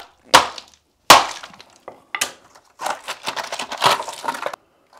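Small hammer knocking apart the thin concrete floor over a plastic perimeter gutter drain channel: three sharp blows in the first couple of seconds, then a rattling, scraping stretch as broken concrete and the channel are pried up off the gravel. The floor breaks away easily under light taps.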